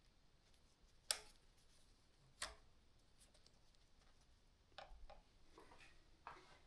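Faint clicks and taps of bicycle parts being handled while a front brake is fitted: two sharp clicks a little over a second apart, then a few lighter taps.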